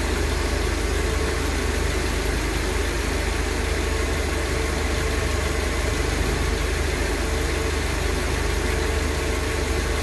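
Mercedes-Benz engine with KE-Jetronic fuel injection idling steadily.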